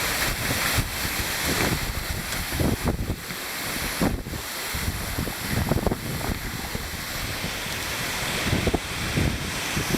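Waterfall pouring steadily into a pool, a dense rush of falling water, with gusty wind buffeting the microphone.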